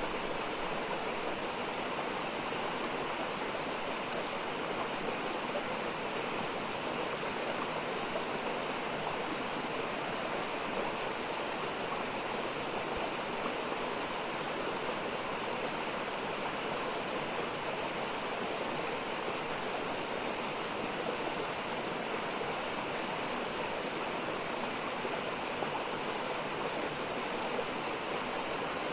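Mountain valley stream flowing: a steady, unbroken rush of water that holds the same level throughout.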